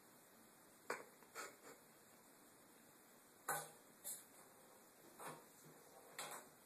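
A ping pong ball tapping and bouncing against a bathtub as a kitten bats it about: a string of light, irregular taps, some in quick pairs.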